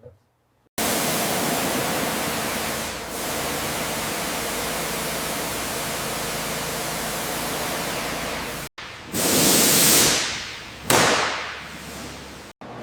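A steady hissing rush of noise. It cuts off abruptly, then two louder surges swell and fade away.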